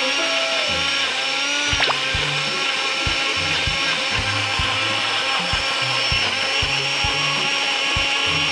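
NeeBot countertop blender running steadily at speed, its motor whining as the blade purées chopped apple and onion, with a brief wobble in pitch about two seconds in. The blade is turning freely now that the pieces have been cut smaller.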